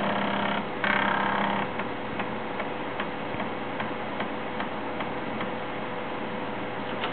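Shugart SA455 5¼-inch floppy drive loading from a disc: its head stepper buzzes in two short quick seeks, then clicks about two and a half times a second as the head steps track by track, over a steady faint hum.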